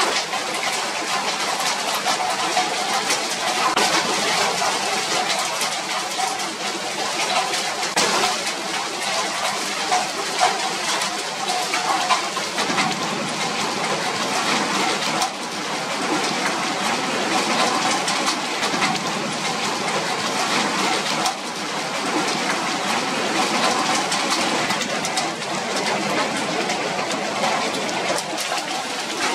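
Heavy rain falling steadily, a dense patter of drops, with two sudden small shifts in level partway through.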